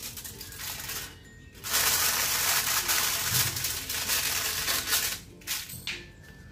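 Aluminium foil crinkling and crackling as it is spread over a plastic container and pressed down around the rim. The crackle is loudest from about two seconds in and tapers off near the end.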